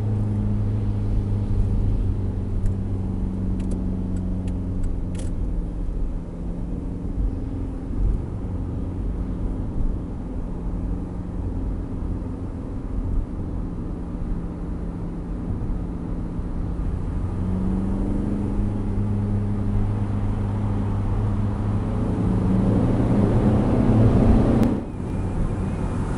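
Seat Leon TDI turbo-diesel engine and exhaust droning steadily at cruise, heard inside a moving car with road noise. In the last few seconds it builds as the car accelerates, then drops off abruptly near the end.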